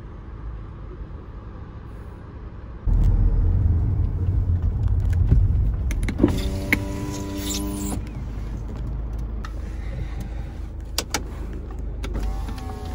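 Engine and road noise heard inside a Volkswagen car's cabin, a low rumble that jumps suddenly louder about three seconds in as the car is driven along. A steady humming tone sounds for a couple of seconds in the middle, and there are a few sharp clicks near the end.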